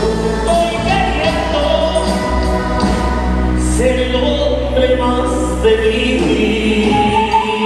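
Live band playing with a lead singer: sung melody over drums and a heavy, steady bass line. The deepest bass drops out near the end.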